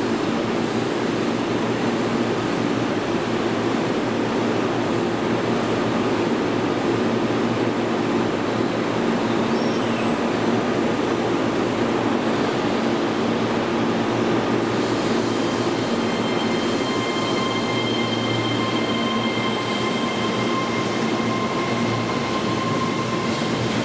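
Keihan 3000 series electric train running through an underground station with a steady rumble and rolling noise; about fifteen seconds in, high whining tones come in and hold, as from the motors or from wheels squealing.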